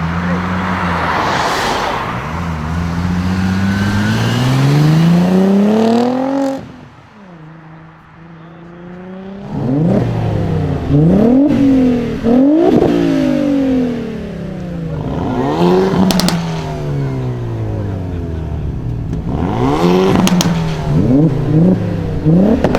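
Audi RS4 B5's twin-turbo 2.7-litre V6 revving. The engine climbs steadily in pitch for several seconds, then drops away. After a short lull come a run of sharp throttle blips, each falling back to idle, with a few cracks from the exhaust during the later blips.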